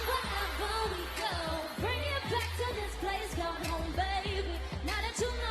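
Pop music playing: vocals over a steady bass-heavy beat.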